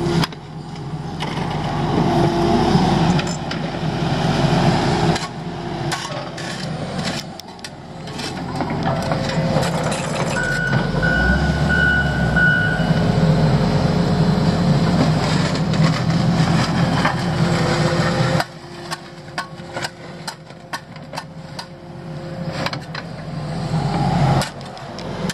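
Diesel engines of a mini excavator and a front-end loader running under load as they move dirt. A backup alarm beeps a few times about halfway through, and there are sharp knocks and scrapes in the last third.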